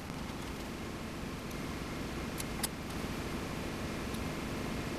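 A few small sharp clicks, two close together about halfway through, over a steady low hiss: hand wire cutters snipping the leads off a miniature limit switch.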